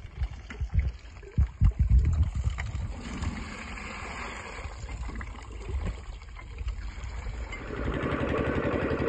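Irregular low thumps, then a soft bubbling hiss of cane juice boiling in an open pan. About eight seconds in, the stationary engine driving a sugar-cane mill comes in, loud and steady with a fast even beat.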